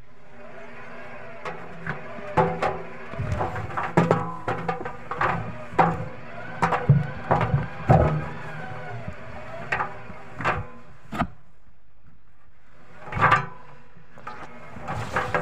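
Irregular knocks and clatter from handling a Schaub Lorenz washing machine's stainless steel drum with laundry in it, over a steady low hum. The knocks are thickest in the middle, then there is a brief lull and one more loud knock.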